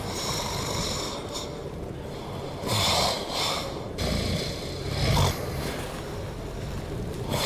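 A neighbour snoring noisily through the night in the next-door apartment: rough snores that come every couple of seconds, each with a deep low rumble.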